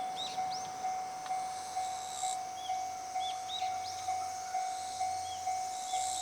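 Railway level-crossing warning bell ringing, one steady tone struck about twice a second. Short high bird chirps and a faint steady hiss sound over it.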